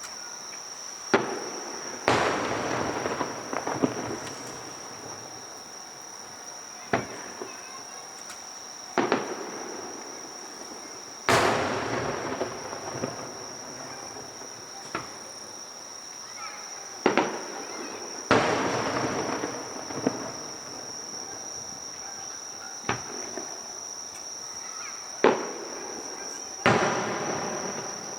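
Aerial fireworks bursting, about a dozen sharp bangs a second or more apart, several followed by a long crackling trail, over the steady high drone of insects.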